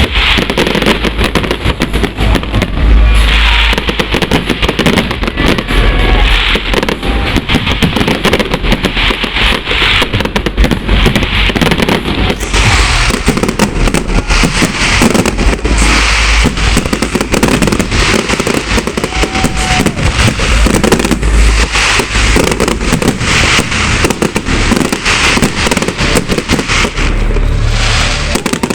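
Fireworks display in full barrage: a rapid, unbroken string of bangs and crackling shell bursts.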